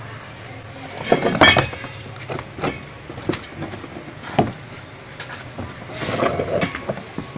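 Haier washing machine's casing being pulled apart by hand after its screws are out: a series of separate knocks and clatters of the body parts, with a scraping rub near the end.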